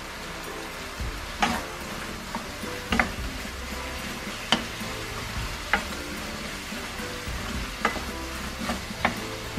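Wooden spatula stirring dried baby squid and walnuts in a sticky soy glaze in a hot wok, the glaze reduced almost dry and sizzling steadily. Sharp knocks of the spatula against the pan come every second or so, starting about a second in.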